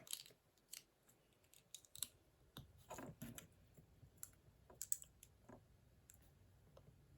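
Faint, scattered clicks of small plastic LEGO minifigure parts being handled and pressed together, irregular and a second or so apart, with a small cluster around three seconds in.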